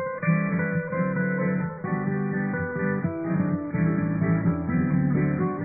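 Acoustic guitar music playing a run of plucked notes and chords.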